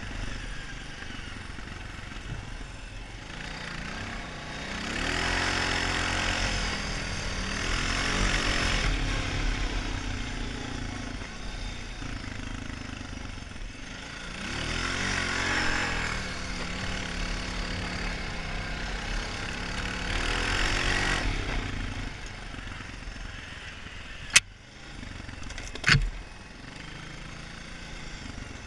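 Honda 450 ATV's single-cylinder engine running under way, rising in pitch through several throttle surges and dropping back between them. Near the end come two sharp knocks about a second and a half apart.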